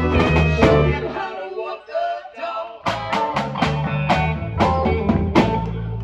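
Live band playing blues-rock: electric guitars, bass and a steady beat under a woman's singing. A little over a second in, the bass and beat drop out for a moment, and the full band comes back in about three seconds in.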